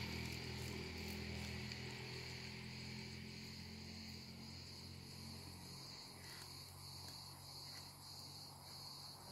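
Faint, steady insect chirring, an even high-pitched drone, with a low hum fading out over the first two seconds.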